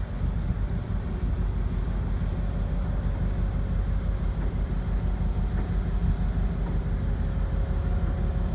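Wind buffeting the microphone over a low, steady engine drone on the water, with a faint steady hum coming in about halfway.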